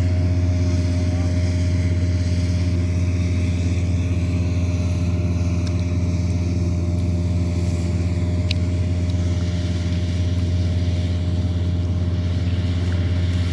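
Combine harvester's engine running steadily at constant speed: a deep, even hum that holds one pitch throughout.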